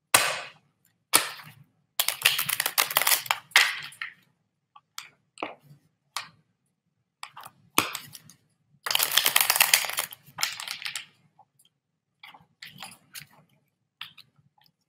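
Tarot cards being shuffled and handled: crackly bursts of card noise, the longest about two seconds in and again about nine seconds in, with scattered clicks between.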